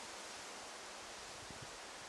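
Faint, steady forest ambience: an even hiss of leaves rustling in the wind, with a soft low bump about three quarters of the way through.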